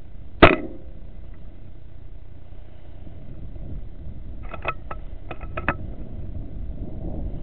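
A single sharp shot from a .22 FX Wildcat FAC air rifle about half a second in, over a steady low rumble. About four seconds later comes a quick series of about six light clicks.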